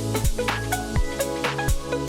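Electronic background music with a steady driving beat, about two beats a second, over sustained synth notes.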